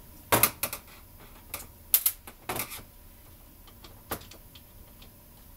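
Sharp, irregular clicks and taps of a screwdriver and small metal screws as the top-cover screws are worked out of a 1996 Evinrude 15 hp outboard carburetor, about six in the first four seconds.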